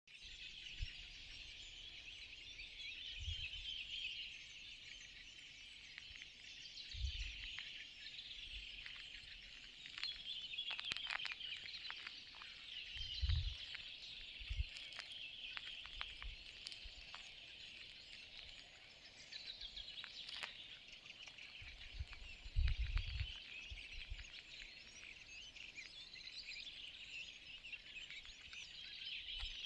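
Small birds singing, a continuous chorus of quick high chirps and twitters. Occasional brief low rumbles mix in, loudest about halfway through and again later.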